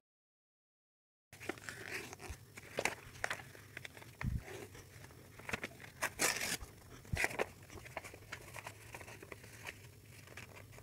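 A sheet of paper being handled and folded into a paper boat: faint rustling and crinkling, with a few sharp crackles as it is creased. Dead silence for about the first second.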